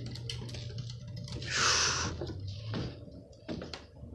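Light ticks and scuffs of steps on concrete stairs, with a short hiss about a second and a half in, the loudest sound here.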